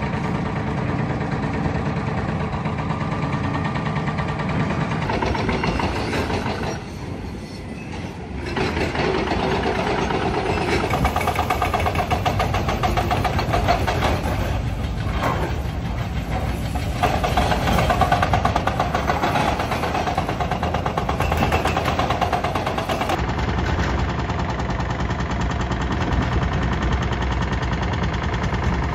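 Diesel engines of heavy demolition machinery running steadily. The sound dips briefly and changes character a couple of times, as between different shots.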